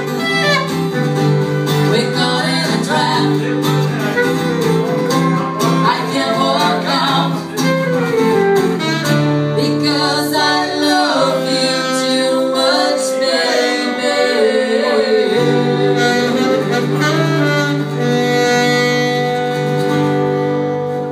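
Live acoustic band playing: saxophone and acoustic guitar with a woman and a man singing.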